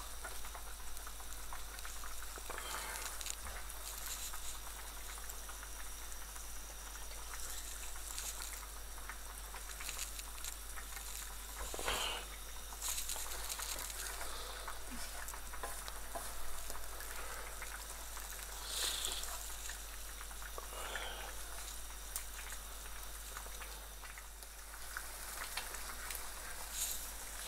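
Thick taro curry sizzling and bubbling in a nonstick frying pan, with a wooden spoon stirring through it and now and then scraping the pan.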